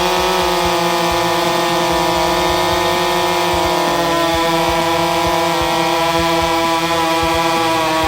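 Chainsaw engine running flat out at a steady high pitch while cutting, the note dipping slightly partway through as the saw takes load.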